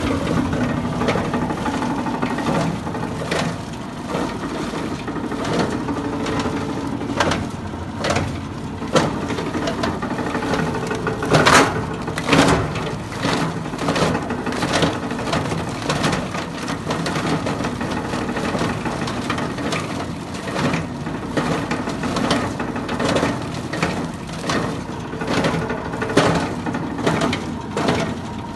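A 20-inch scrap grinder driven by a 12.5 hp motor, running and chopping scrap, with a steady drone broken by irregular knocks and cracks. One loud crack comes about eleven seconds in.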